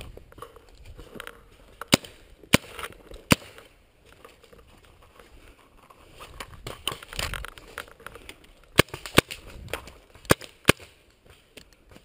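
Paintball markers firing sharp single pops, about seven in all: three spread out in the first few seconds, then two quick pairs near the end. Between the shots, brush and dry grass rustle as a player moves through it.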